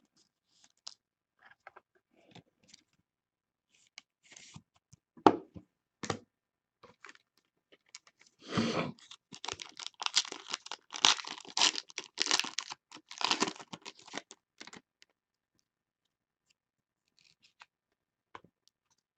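A trading-card pack wrapper torn open and crinkled by hand: about six seconds of dense crackling starting a little past the middle. Before it come scattered light clicks and taps of cards being handled, with one sharper tap about five seconds in.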